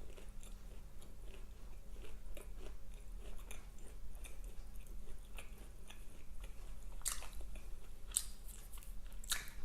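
Close-miked chewing of a fried mozzarella stick: a run of small wet mouth clicks and smacks, with a few louder smacks in the last few seconds.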